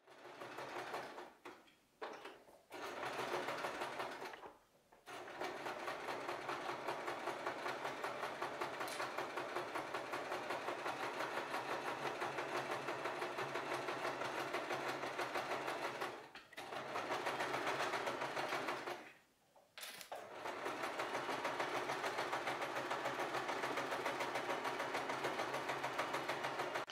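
Domestic electric sewing machine running a straight stitch through two layers of cotton fabric, its needle going at a fast, even rhythm. It stops and restarts about four times: about two and five seconds in, and again near sixteen and nineteen seconds.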